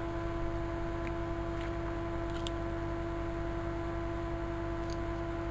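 Steady hum made of one strong fixed tone and a few weaker ones, over a low, even pulsing, with a few faint ticks in the first half.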